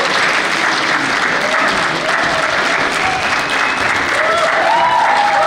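Audience applauding steadily. A few faint pitched sounds come through the clapping in the second half.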